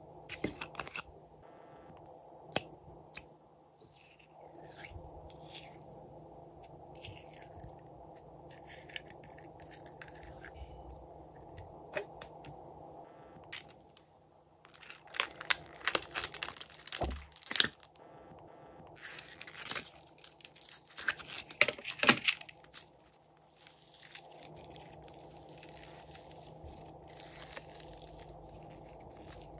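Hands working slime and its plastic containers: pink slime squeezed out, poured and stretched, with a few sharp clicks near the start and two stretches of louder crackling and clicking in the middle.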